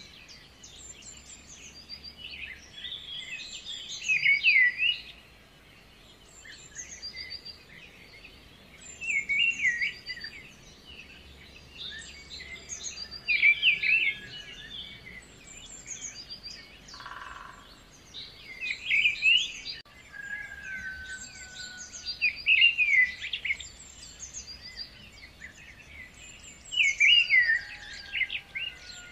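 Birds singing: a loud burst of chirping song every four or five seconds over softer high chirps throughout.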